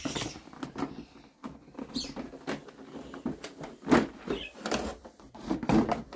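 A cardboard box being handled and pulled open: scraping and rustling with a few knocks, the loudest about four seconds in and another near the end.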